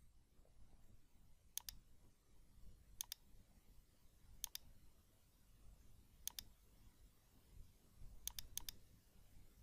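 Faint computer mouse clicks: four single clicks about a second and a half apart, each placing a spline point, then a quick cluster of clicks near the end, the double-click that finishes the spline.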